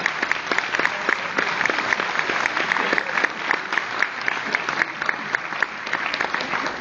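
Audience applauding steadily, with single claps standing out.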